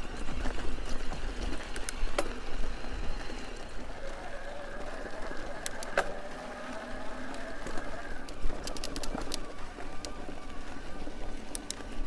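Electric mountain bike mid-drive motors whining steadily under load on a climb, first a Bosch CX Race, then a Rocky Mountain Dyname 4.0, with tyre rumble on the dirt and scattered sharp ticks.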